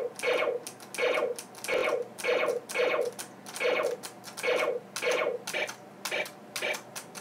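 Nerf Laser Ops Pro AlphaPoint infrared blaster fired over and over, its speaker playing a short electronic shot sound with each trigger pull, about two shots a second, a little unevenly spaced.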